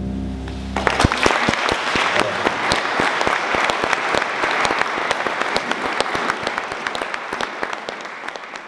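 Audience applauding, starting about a second in as the last held note of the song dies away, and thinning out near the end.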